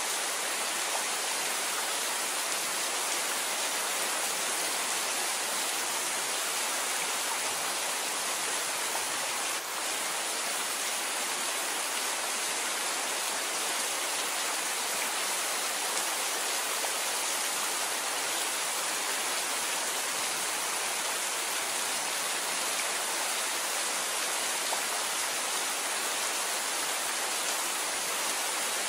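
Steady rain falling, an even unbroken hiss, with one momentary dip in level about ten seconds in.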